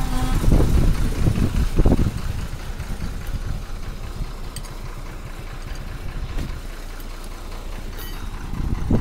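Tractor engine idling with a steady low rumble. For the first two seconds the sound is louder and more uneven.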